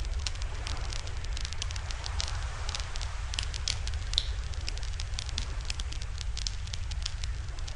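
Wood campfire crackling, with many sharp irregular pops and snaps, over a steady low rumble.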